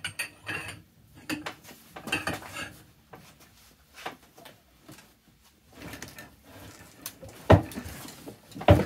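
Clinks and clanks of a socket and long breaker bar on an impeller removal tool, being worked to unscrew a Loctited Sea-Doo jet pump impeller. Two loud, sharp knocks come near the end.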